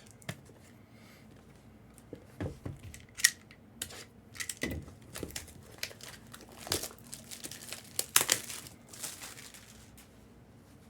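Packaging being torn open and crinkled by hand: a run of short, uneven crackles and rustles with a few sharper snaps.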